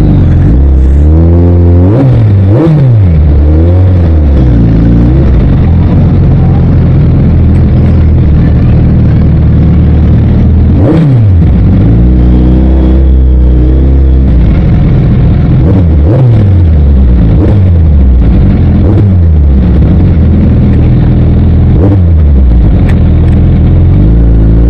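Suzuki Hayabusa's inline-four engine running very loud, its pitch rising and falling again and again as the throttle is opened and closed.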